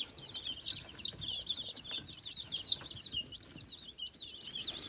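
A brood of chicks less than a week old peeping continuously: many quick, high chirps overlapping one another.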